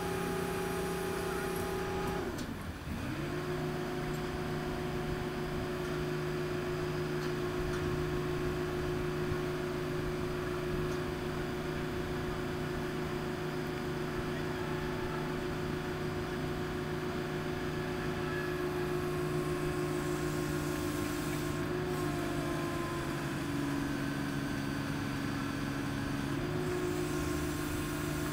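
Diesel engine of a compact tracked crane running steadily at a constant hum. Its pitch dips briefly about two and a half seconds in, then steps down and back up a couple of times near the end as the engine takes load.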